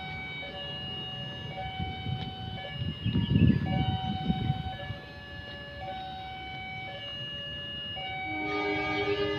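Steady pitched tones that step from one pitch to another, with a loud low rumble about three seconds in; near the end an approaching train's horn begins to sound.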